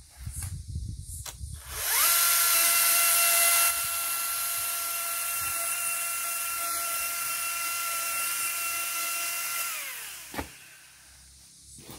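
Pole chainsaw spinning up with a rising whine and cutting through a tree branch, louder for the first second or two of the cut, running steadily, then winding down about ten seconds in. A single sharp knock follows as the cut-off piece lands.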